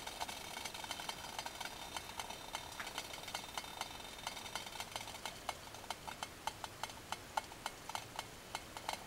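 Methanol alcohol stove burning its last fuel under a stainless steel pot of hot water: a faint hiss with small irregular ticks and crackles that grow more frequent from about halfway through, as the flames die down.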